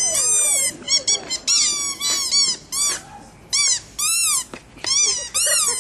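A rapid run of shrill, squawking bird-like calls, about a dozen short cries that each rise and then fall in pitch.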